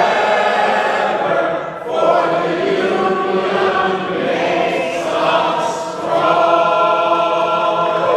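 A group of many voices singing together in unison, in phrases that break about every two seconds.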